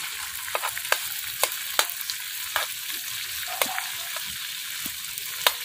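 Minced garlic frying in melted butter in a large metal wok: a steady sizzle with scattered sharp pops and clicks as a long metal ladle stirs it.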